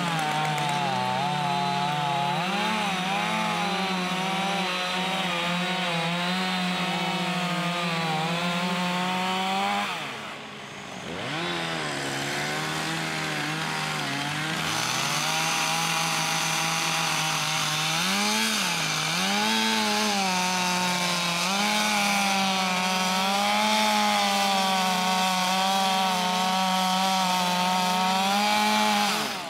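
Chainsaw fitted with a carving bar running and cutting into wood, its revs wavering as it bites. It drops off briefly about ten seconds in, then picks up again.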